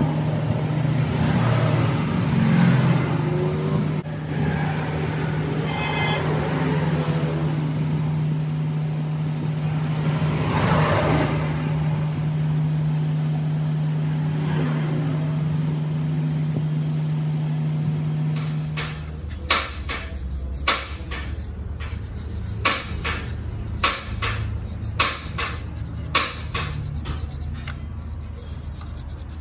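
A steady, low engine drone from a running vehicle for most of the clip. Then, after an abrupt change, hand sanding: sandpaper rasped in short strokes against a metal motorcycle handlebar part, about one stroke a second.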